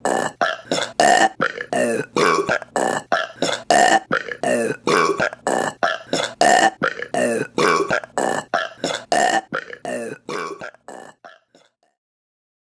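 Rapid string of short burps from women, about three a second in an even, repeating pattern, fading out near the end.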